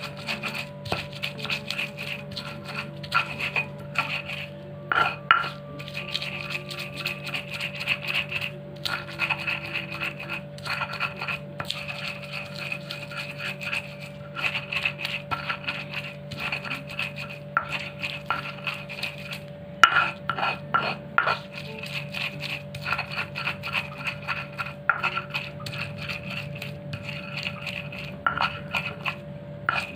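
A stone pestle grinding and knocking against a stone mortar (Indonesian ulekan and cobek) in quick irregular strokes, crushing kencur, shallots, garlic and chillies down to a fine paste. A steady low hum runs underneath.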